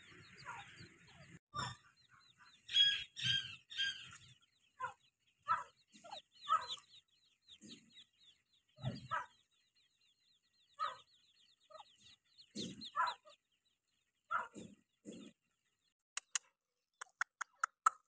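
Grey francolin hen giving short clucking calls at intervals while her downy chicks keep up a faint, rapid high peeping. A quick run of sharp ticks comes near the end.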